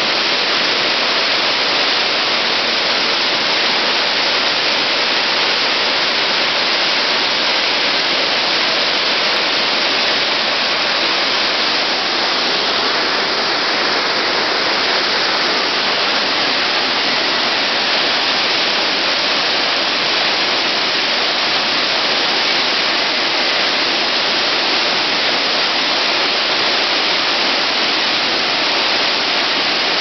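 Tall waterfall plunging over a rock ledge into its pool, a loud, steady rush of falling water.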